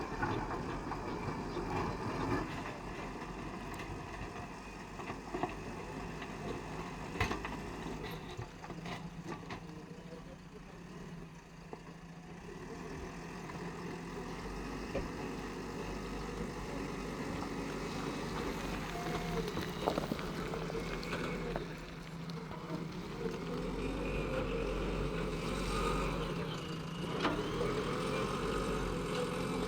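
Diesel engine of a JCB earthmoving machine running steadily, its load rising and falling as it works, with a few sharp knocks.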